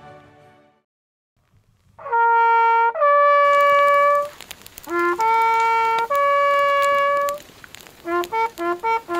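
Background music fades out within the first second, then there is a moment of quiet. A coiled brass hunting horn then blows traditional hunt calls over the game tableau: long held notes on a few pitches, then a quick run of short notes near the end.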